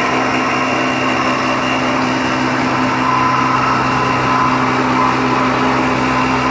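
M40 millet milling machine running under load: its electric motor and milling rotor give a steady hum of several even tones over the noisy rush of millet being milled and pouring out of the chute.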